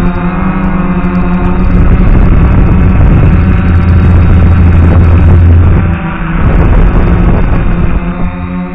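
DJI F450 quadcopter's electric motors and propellers running, a steady droning hum. From about two seconds in it turns into a loud rushing noise with shifting pitch as the drone manoeuvres, and the steady hum returns near the end.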